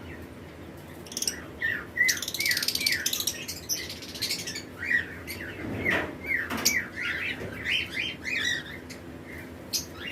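Several lovebirds chirping: a quick run of short, downward-slurred chirps, with a stretch of dense, shrill chatter about two seconds in.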